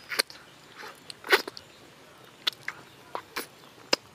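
Close-miked wet mouth sounds of a man eating soft durian flesh: irregular lip smacks and sucking clicks, about half a dozen in a few seconds, the loudest about a second and a half in.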